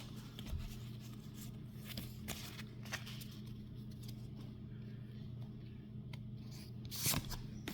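Faint rustling and light clicks of Pokémon trading cards and a torn foil booster pack being handled, a little louder near the end, over a steady low hum.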